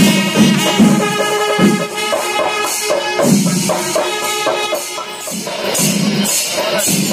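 Music with steady percussion and jingling hits under sustained melodic tones; sharper, brighter hits come in near the end.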